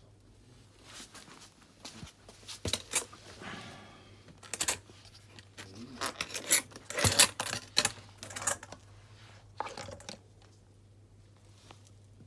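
Irregular clicks, knocks and short rustles of plastic parts of a Dyson vacuum cleaner being handled, with a cluster of sharper clatter about seven seconds in; the vacuum's motor is not running.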